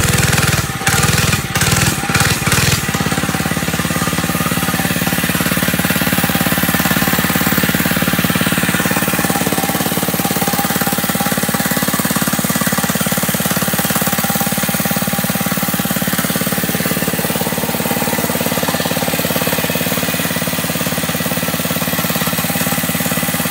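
Mini bike's small single-cylinder engine running, now that a kink has been taken out of its fuel line. The sound dips briefly a few times in the first three seconds, then the engine runs steadily.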